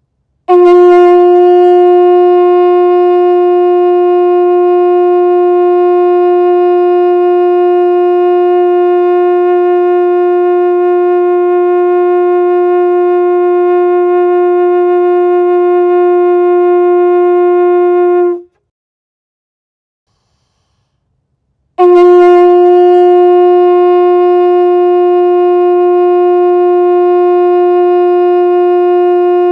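Conch shell blown in a long, steady blast on one pitch, lasting about eighteen seconds and cutting off, then after a gap of about three seconds a second blast on the same pitch begins.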